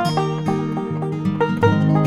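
Background music: plucked acoustic strings in a bluegrass-country style, with quick picked notes over a steady strummed accompaniment.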